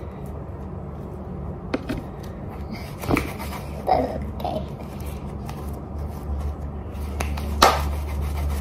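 Stiff, play-dough-like homemade slime being squeezed and kneaded by hand, with a few sharp sticky pops and clicks.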